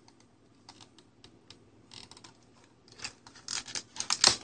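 Stiff plastic blister packaging being handled, with scattered light clicks and crinkles that build into a denser run of crackling near the end.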